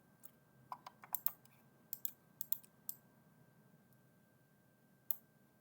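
Irregular clicks of computer keyboard keys and mouse buttons, about a dozen in the first three seconds and one more near the end, as objects are copied and placed in PLC HMI design software.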